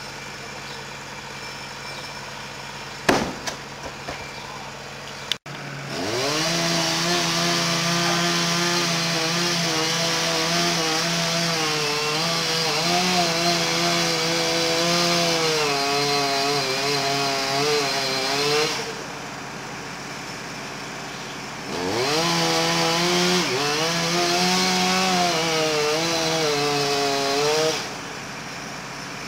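Chainsaw revving up and cutting wood at full throttle for about thirteen seconds, its pitch wavering as it bogs under load, then dropping off. After a short pause it revs up and cuts again for about six seconds. A sharp knock comes a few seconds before the saw first starts.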